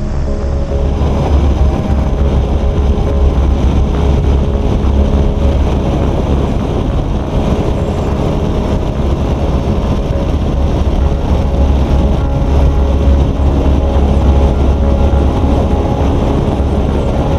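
Motorcycle running steadily at road speed, heard from a camera mounted low beside the front wheel, with a heavy, steady low rumble of wind and road noise under the engine.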